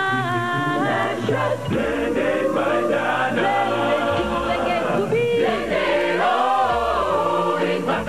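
A group of voices singing a slow advertising jingle in harmony, holding long notes that glide between pitches; the word "rich" is sung about a second in.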